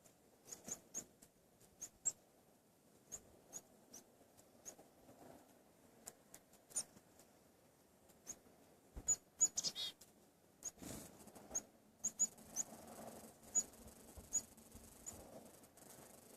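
Small wild birds giving short, high, thin call notes, scattered irregularly and faint, with a louder cluster of calls about halfway through.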